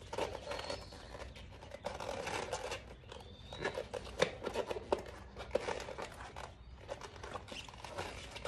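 A rubber inner tube and fat-bike tire being worked into the rim by hand: irregular rubbing, scuffing and light knocks of rubber on rubber and rim, with a short high squeak about three seconds in.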